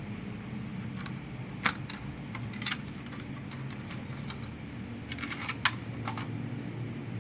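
Scattered sharp clicks and taps of hands working on a laptop, a dozen or so at uneven intervals, the loudest about a second and a half in and again near the end, over a steady low hum.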